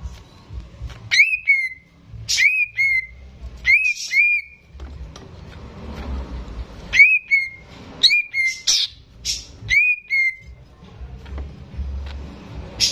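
Greater green leafbird (cucak ijo) singing loudly: short clear whistled notes that flick up and drop, mostly in pairs, in two runs with a pause between. A few harsh rasping calls are mixed in.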